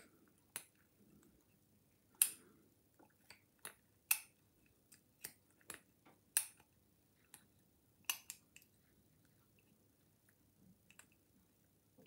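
Lever pick and tension tool working in the keyway of a Chubb Cruiser five-lever padlock: faint, irregular clicks as the levers are lifted and set, a little louder about two, four, six and eight seconds in.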